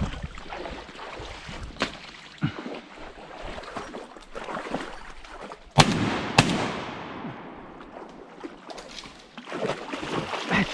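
Two shotgun shots about half a second apart, each ringing briefly through the trees. A couple of lighter knocks come a few seconds earlier.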